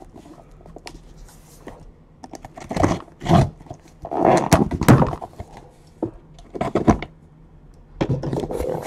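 A cardboard trading-card case being handled: a series of thunks and knocks as it is moved, with hands sliding over the cardboard.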